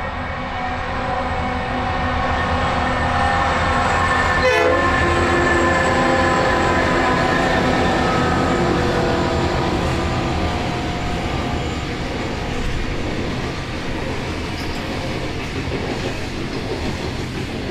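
Diesel-hauled freight train with G, BL and X class locomotives running by, its engine note and wheel-on-rail rumble building to a peak about five seconds in and then slowly easing off. A short wavering call cuts through briefly near the peak.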